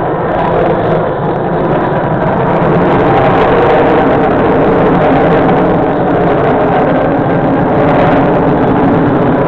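Steady roar of F/A-18 Hornet jet engines as five jets fly in close formation.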